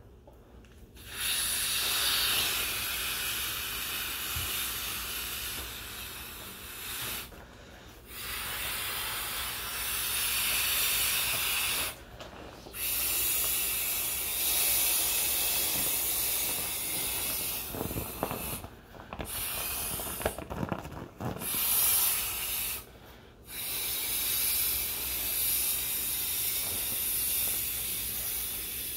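A person blowing by mouth into the valve of a vinyl inflatable clownfish toy: long, steady rushes of breath, about six of them, each broken by a short pause for breath.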